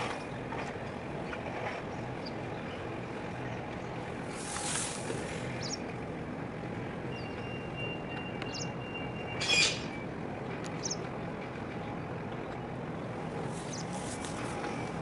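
Steady low harbour background noise, with a few short high bird chirps scattered through it and one louder, brief bird call a little past halfway.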